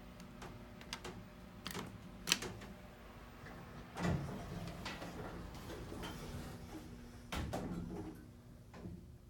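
Otis Series 1 elevator's sliding car doors closing. A run of sharp mechanical clicks comes first, the loudest a little over two seconds in. Then the doors slide and shut with a thump about seven seconds in.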